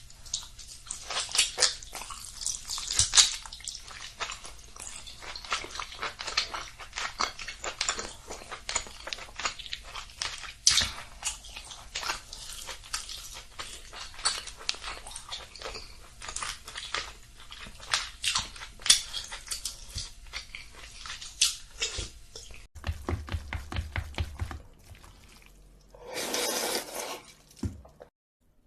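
Close-up eating sounds: crunching and chewing with many sharp mouth clicks and snaps. Near the end the chewing stops, and there is a brief rustling noise.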